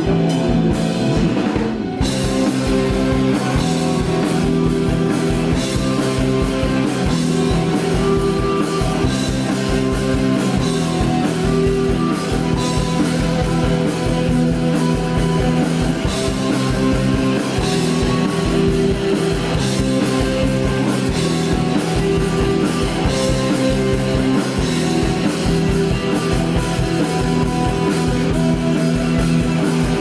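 Live rock band playing loudly: distorted electric guitars, bass guitar and a drum kit keeping a steady beat.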